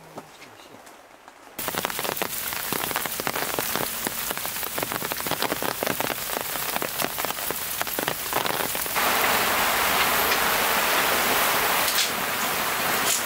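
Rain. After a quiet first second and a half it starts suddenly as many separate drop hits, and about nine seconds in it turns into a denser, even hiss of heavier rain.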